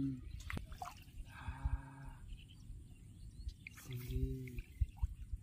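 Water dripping and sloshing in a flooded rice paddy as a fishing net is handled and fish are pulled from it, with soft thumps of handling. A couple of short low voice sounds come in, one about a second and a half in and another about four seconds in.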